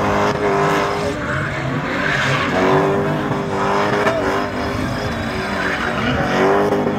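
BMW M20 straight-six engine of a spinning car held at high revs, its note steady and dropping back briefly a few times, over the hiss and squeal of spinning rear tyres.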